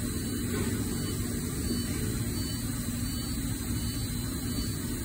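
Steady low mechanical hum and rumble of background machinery, with a faint steady tone and no sudden sounds.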